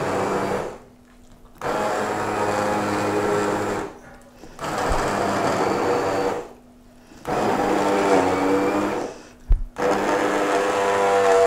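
Electric stick blender puréeing tomatoes, green pepper, bread and water for gazpacho in a plastic jug. It runs in five pulses of about two seconds with short pauses between, the motor's pitch shifting as it chews through the chunks. There is a brief knock during one of the pauses.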